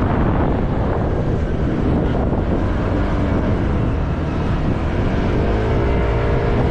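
Wind buffeting the microphone over the low rumble of a motorcycle riding along a street. About five seconds in, an engine note rises in pitch as the engine speeds up.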